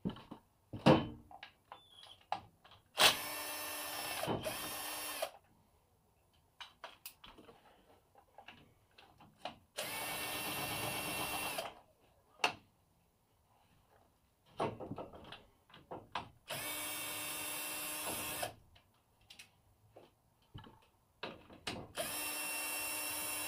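Cordless drill-driver whining in four steady bursts of about two seconds each, working the screws on a small two-stroke engine's plastic cover, with clicks and knocks of handling between the bursts.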